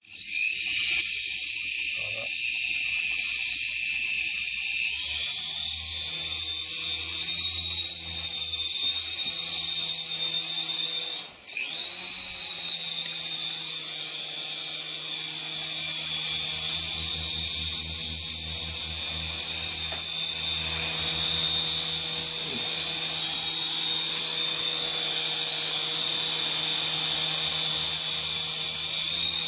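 Mini radio-controlled helicopter's small electric motors whining steadily, with a lower rotor hum. The whine steps up in pitch about five seconds in, nearly cuts out for a moment near the middle, then picks back up and holds steady.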